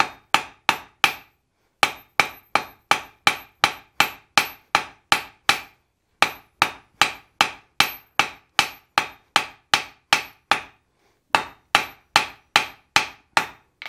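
Hammer blows on red-hot steel on an anvil, drawing out a forged mouse's tail into a hook: steady, evenly spaced strikes about three a second, broken by three short pauses.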